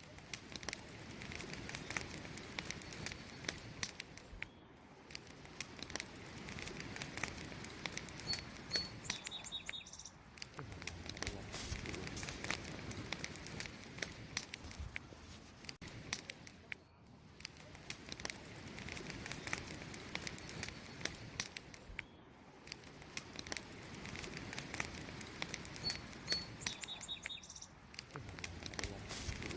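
Wood campfire burning, with a steady hiss of the flames under frequent sharp crackles and pops that swell and ease off every few seconds. Faint high chirps come about eight seconds in and again near the end.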